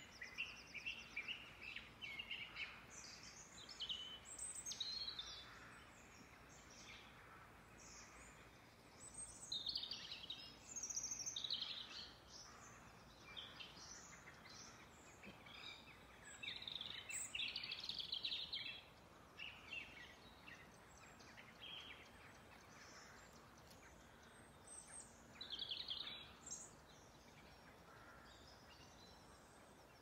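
Dawn chorus of several songbirds singing faintly, with short high phrases overlapping in clusters and quieter gaps between them.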